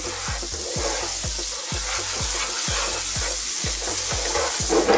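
Onions and garlic sizzling in hot olive oil and butter in a frying pan, stirred with a wooden spoon. Background music with a steady beat runs underneath.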